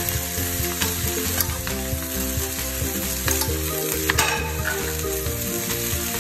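Diced vegetables and freshly added leafy greens sizzling steadily in a nonstick frying pan over a medium-high gas flame. A few light clicks and scrapes sound in the pan, the most marked about four seconds in.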